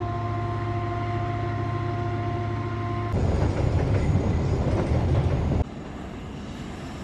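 Coal train hauled by two EMD CC205 diesel-electric locomotives. It begins with the engines running steadily with a steady whine. About three seconds in it cuts to a louder rough rumble of loaded coal wagons passing close. It then cuts abruptly to a quieter, steady locomotive running sound.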